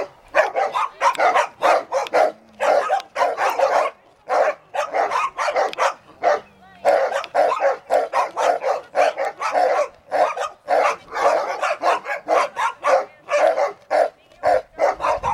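Dogs barking hard and fast, a few sharp barks a second, with short lulls about four and six and a half seconds in.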